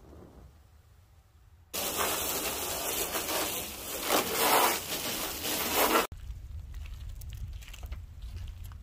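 Garden hose spray nozzle jetting water into a pickup truck's bed: a loud steady hiss of spray that starts abruptly about two seconds in and stops just as suddenly about four seconds later. Quieter light ticks and rustling follow.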